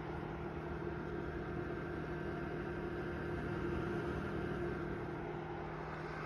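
Room dehumidifier running: a steady fan-and-motor hum with a few held tones over an even whir.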